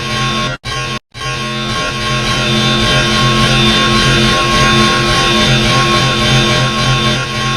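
Loud, harsh, distorted droning tones from a voice clip looped so fast that the word is no longer heard, sounding like distorted electric guitar. It cuts out twice, briefly, about half a second and a second in.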